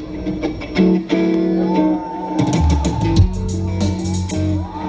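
Live rock band playing: electric guitars ringing on held chords, then about two seconds in the bass and drum kit come in with cymbal hits.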